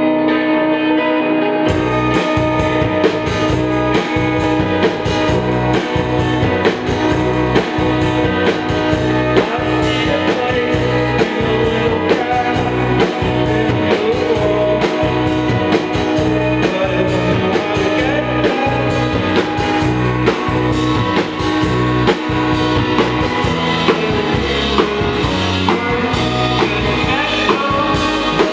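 Live rock band playing, with electric guitar, electric bass, keyboard and drums. A held note sounds alone at first, and the drums and bass come in about a second and a half in.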